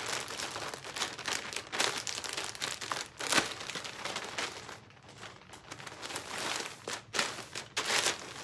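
Clear plastic packaging bag crinkling and rustling in irregular bursts as it is opened and a velvet coat is pulled out of it, loudest about a third of the way in and again near the end.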